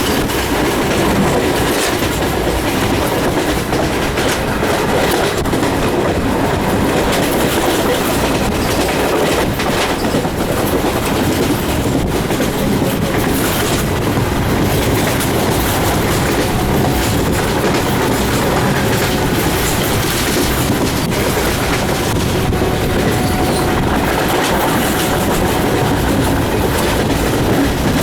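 Train running, heard at a passenger carriage window: a steady loud rumble and rush, with irregular clicks of the wheels passing over rail joints.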